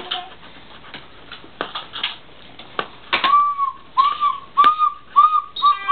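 A small orange toy whistle blown by a toddler in a string of short toots, about seven in a row starting about three seconds in, each tone bending slightly up and down. A few sharp clicks and taps come before the toots.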